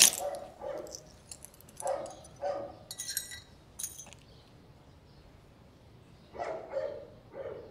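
A dog barking several times, in short pairs near the start, in the middle and near the end, with a few light clinks in between.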